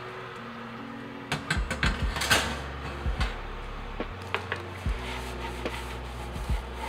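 Irregular knocks and clatter of metal and wood as an oven is loaded, with baguettes slid in on a wooden board, the loudest knock about two seconds in.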